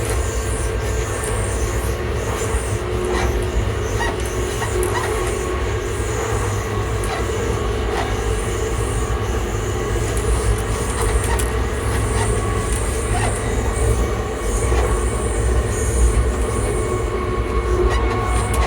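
ScotRail Class 334 electric multiple unit's traction motors running at a steady speed: an even whine over a low rolling rumble, with scattered faint clicks from the wheels on the track.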